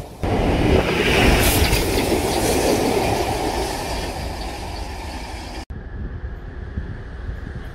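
Train headed by the LMS Jubilee Class steam locomotive 45596 Bahamas running past on the rails: a steady rush and rumble of wheels on track. About six seconds in the sound cuts off abruptly and picks up as a duller, quieter rumble.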